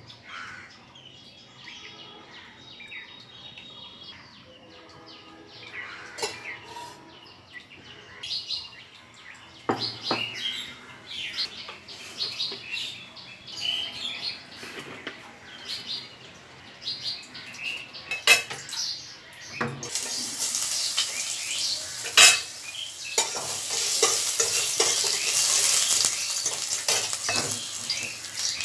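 Dishes and utensils clinking, with birds chirping in the background; about two-thirds of the way through, a loud sizzle starts as food fries in hot oil in a pan and continues.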